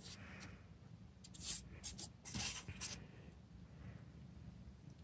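Faint, short rustles and scuffs of a cat playing with a feather wand toy, a few of them between about one and three seconds in.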